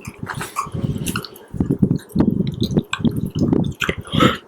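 Close-miked wet mouth sounds: chewing and squishing with small clicks and smacks, made ASMR-style into a microphone.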